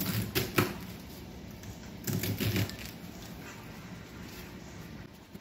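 Kitchen knife slicing through a wedge of red cabbage onto a paper plate: a few crisp cuts at the start and a quick run of them about two seconds in.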